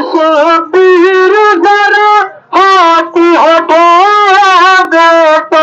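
A solo voice chanting a noha lament through a microphone and loudspeaker, in short held phrases with brief breaks between them.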